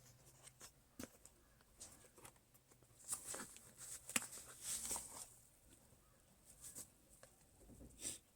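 Soft handling noises: scattered light clicks and rustles, busiest and loudest about three to five seconds in with one sharper click among them. No alarm beeping.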